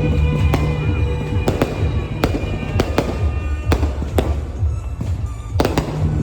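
Aerial fireworks bursting in an irregular string of sharp bangs, about two a second, over loud music with heavy bass.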